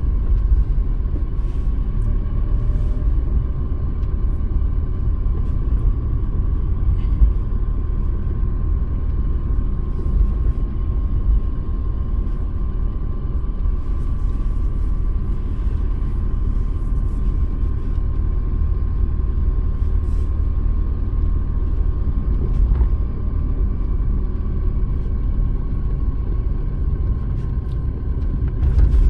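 Steady low engine and road rumble heard from inside a moving car, with a faint steady high whine.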